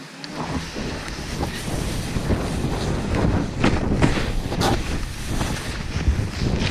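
Wind rumbling on an action camera's microphone as a snowboard rides fast through deep powder, with a rushing hiss of board and spraying snow. The noise swells in the first second and a few sharper hissing sprays come through the middle, as the board turns.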